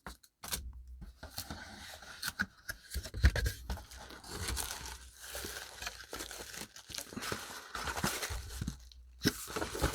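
Watch packaging being handled and opened: irregular crinkling and tearing of paper or plastic wrapping, broken by small taps and scrapes.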